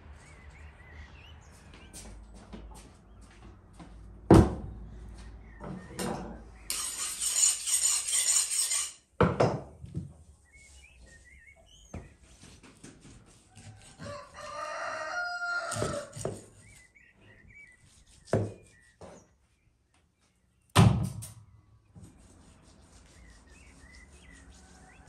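A rooster crows once, about midway through, over scattered small-bird chirps. Three sharp, heavy thumps fall early, in the middle and late, and a loud hiss runs for about two seconds in the first third.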